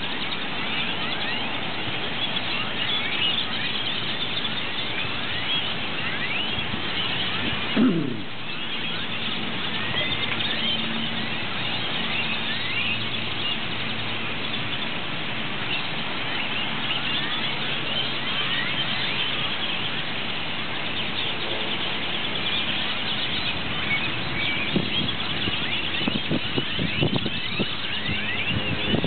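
Dense, continuous chorus of thousands of purple martins chirping at once as the flock comes in to roost, countless short overlapping calls. About eight seconds in there is a brief, louder low sound that falls in pitch.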